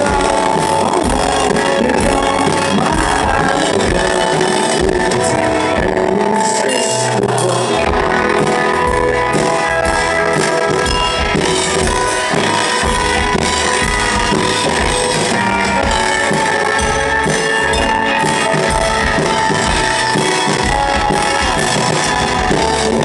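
Live rock band playing an instrumental passage: electric guitar and drums over bass, loud and steady, with no singing. The lowest bass falls away for a couple of seconds about six seconds in.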